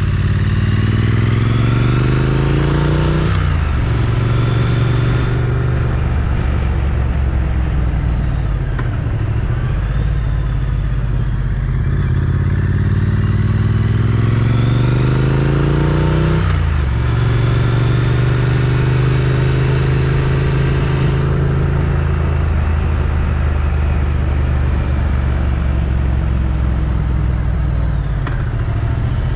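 Triumph Street Twin's 900 cc parallel-twin engine through its stock exhaust, under way: the revs climb, drop sharply at an upshift a few seconds in, hold steady, then climb again to a second upshift about halfway through, after which the engine runs at a steady cruise.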